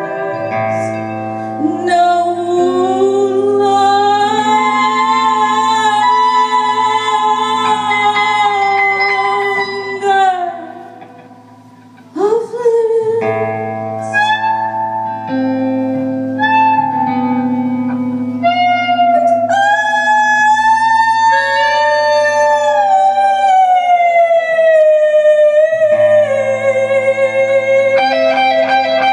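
Live psychedelic music: long, slowly bending sung notes held over sustained electric guitar drones, with a brief dip in the sound about eleven seconds in.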